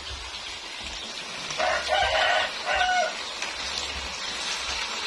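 A rooster crows once, starting about a second and a half in and lasting about a second and a half, over the steady sizzle of sambal sauce bubbling in a wok.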